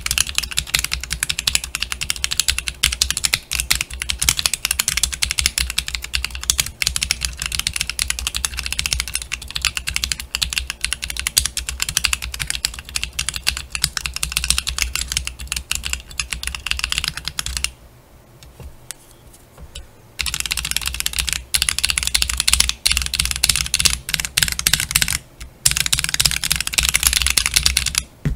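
Fast typing on a May Pad macropad fitted with lubed-spring Akko CS Ocean Blue tactile switches in hot-swap sockets, under cherry-profile dye-sub keycaps: a dense clatter of keystrokes. It pauses for about two seconds a little past the middle and again briefly near the end.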